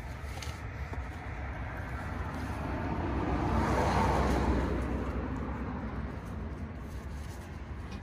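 A Buick sedan driving past: engine and tyre noise swells to a peak about four seconds in, then fades away.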